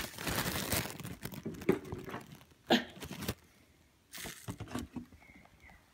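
Packaging being handled as an item is taken out: irregular crinkling and rustling with a few sharp crackles, a short lull a little past the middle, then more rustling.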